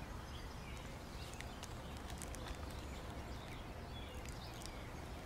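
Quiet outdoor ambience: a steady low rumble with faint, scattered bird chirps and light ticks.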